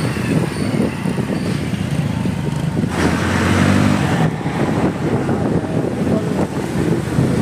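Motorcycle engine and exhaust running steadily while the bike is ridden, mixed with wind and road noise on a helmet-mounted microphone. About three seconds in, the sound shifts and the noise grows brighter for a second or so.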